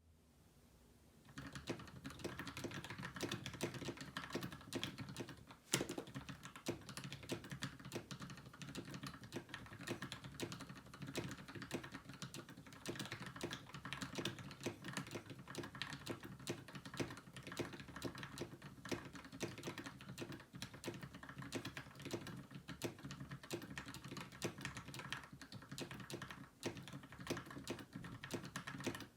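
Continuous fast typing on a custom 60% mechanical keyboard built with lubed Gateron Milky Yellow linear switches, a brass plate and PBT Cherry-profile keycaps in a KBDfans Tofu case. The typing starts about a second in, with one louder keystroke after a short pause about six seconds in.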